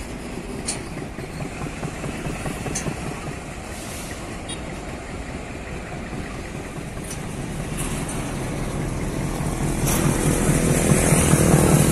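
GE U12B diesel switching locomotive running, its engine sound growing steadily louder as it approaches and rising sharply about ten seconds in as it passes close below.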